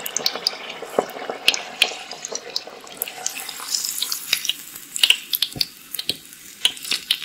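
Water running and splashing in a small stream, with many short, sharp clicks and taps over it.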